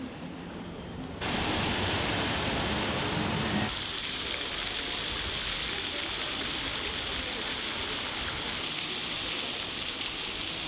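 Steady, even outdoor hiss with no distinct events. It jumps abruptly louder about a second in and changes character abruptly again near four seconds and near nine seconds.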